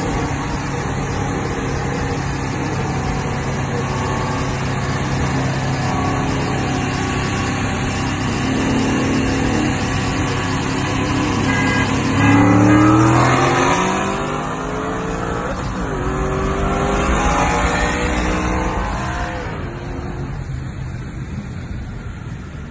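Ford Mustang S550 engine heard from inside the car, cruising at a steady drone, then accelerating hard from about halfway: the revs climb, drop at an upshift, climb again, then ease off near the end in a roll race against another Mustang.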